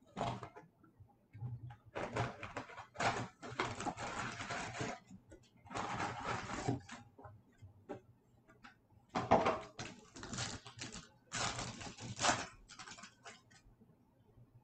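Hands tearing open a foil trading-card pack and handling the wrapper and cards: irregular bursts of crinkling and rustling with short pauses between them.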